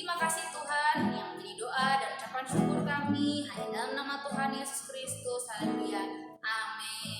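A song with a woman singing over a strummed acoustic guitar.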